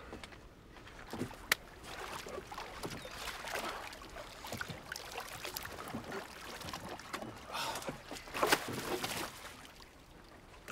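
Water splashing and sloshing as a man is hauled up out of the lake over the side of a wooden boat, with a sharp knock about a second and a half in and another near the end.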